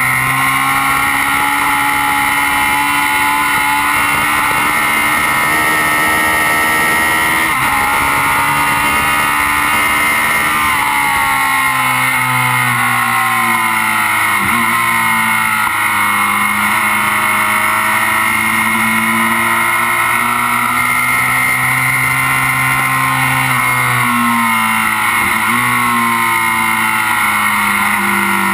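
Kawasaki Z750's inline-four engine running hard at speed, its pitch climbing and falling with the revs and dipping sharply twice, around the middle and near the end. Steady wind rush over the bike is heard under it.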